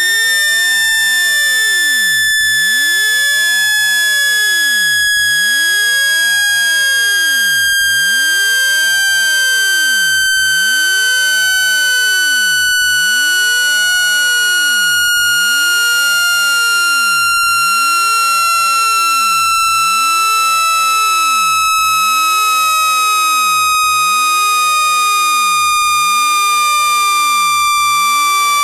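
Electronic water-eject tone for clearing a phone speaker: one loud, steady tone with overtones, gliding slowly and evenly down in pitch.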